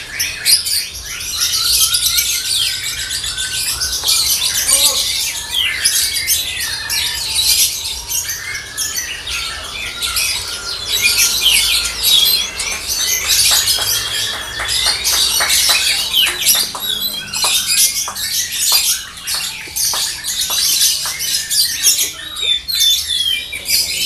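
Caged lovebirds singing: a loud, continuous, high-pitched chatter of rapid overlapping chirps and trills.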